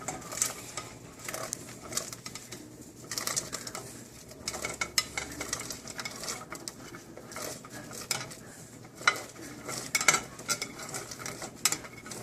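Chopped onion, celery and carrot being added to a pot of boiling water: irregular clinks and scrapes of a utensil against the bowl and pot throughout.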